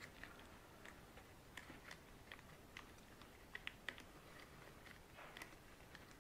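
Near silence with faint, irregular small clicks and rustles of hands pressing and shaping softened polymorph thermoplastic onto a plastic part.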